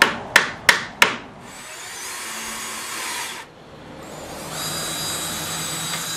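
Four hammer taps on wood, about three a second, then a cordless drill driving pocket screws into the pine bench in two runs: a rougher burst about a second and a half in, and a steadier high whine from past the middle until just before the end.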